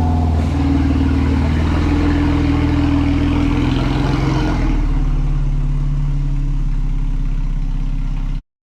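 Porsche 991.2 Carrera S twin-turbo flat-six engine running while the car is driven to warm the oil for an oil change; its note shifts about four and a half seconds in, and the sound cuts off abruptly near the end.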